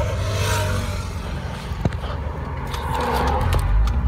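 Car cabin noise: a steady low rumble from the car, with a brief scraping rustle near the start and a single click about two seconds in.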